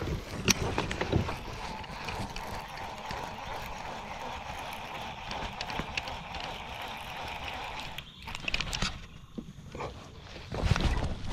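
Fishing reel being cranked steadily to retrieve a lure, a continuous whirr that stops abruptly about eight seconds in, with a few knocks before and after.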